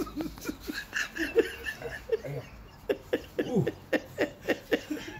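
A man's voice making a quick string of short, breathy, wordless sounds, about two or three a second.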